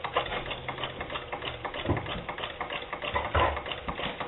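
A small machine ticking in a rapid, even clatter, with a couple of duller knocks about two and three and a half seconds in.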